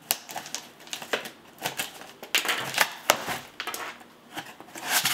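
A ballpoint pen being dragged and jabbed through the packing tape on a cardboard shoe box to open it: an irregular run of sharp clicks, taps and short scrapes, then a longer scrape near the end.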